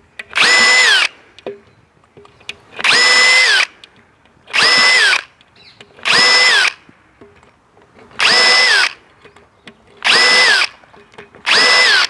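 Cordless drill with a tiny pilot bit drilling short pilot holes, about 10 mm deep, into a glulam beam through a concealed beam hanger's nail holes. There are seven short bursts, each under a second, and the whine drops in pitch as the motor spins down after each one.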